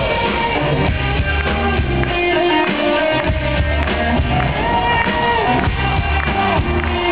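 Live rock band playing through the stage PA, with electric guitar prominent over bass and drums.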